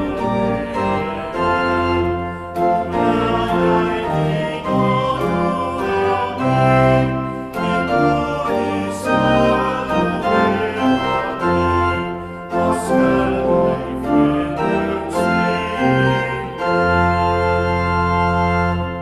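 Church organ accompanying a small group of singers in a hymn, chords changing about once a second, closing on a long held final chord near the end.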